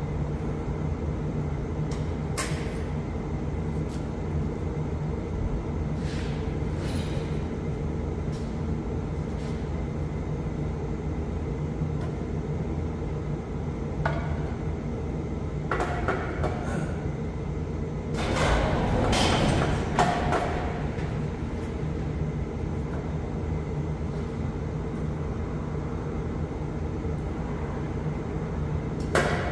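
Kukje AF350 tractor's diesel engine running steadily, with a few scattered clicks and knocks and a louder burst of clattering noise about two-thirds of the way through.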